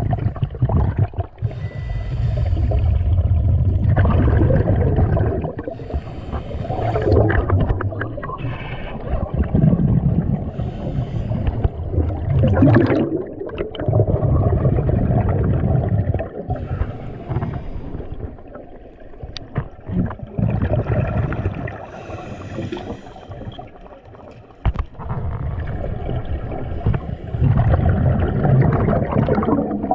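A scuba diver's regulator breathing underwater: a run of bubbling, gurgling exhalations a few seconds long each, with short quieter gaps between breaths.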